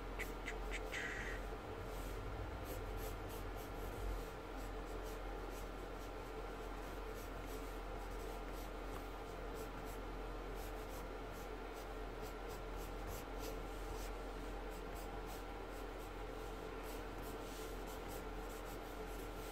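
Pencil sketching on paper: many quick, short scratching strokes, with a faint steady hum underneath.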